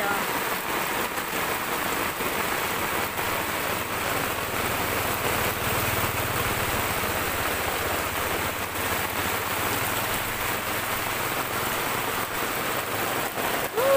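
Heavy rain pouring down onto muddy floodwater that is rushing over the ground: a steady, even hiss.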